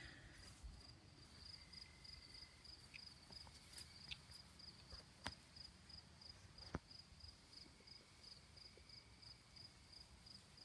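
Near silence with a cricket chirping steadily in the background, a high pulse about three times a second. Two soft clicks come a little past halfway.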